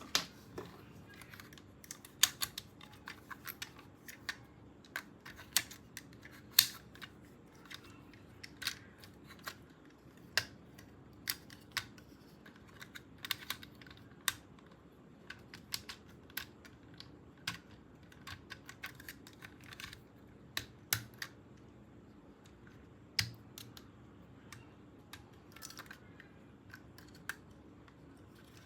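Hard plastic toy parts and packaging being handled, giving irregular sharp clicks and taps, a few of them louder knocks.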